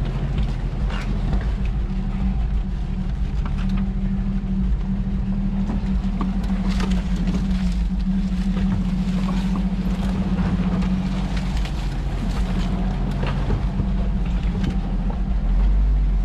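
Toyota FJ40's engine running steadily while the truck crawls over a rough trail, with scattered knocks and rattles from the body and gear as it goes over bumps.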